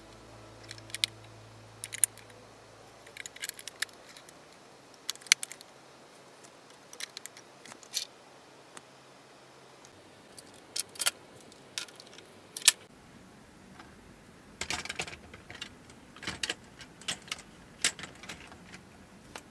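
Lego plastic bricks clicking and snapping as pieces are pressed onto a model locomotive's underframe and handled. Irregular sharp clicks come singly and in quick clusters.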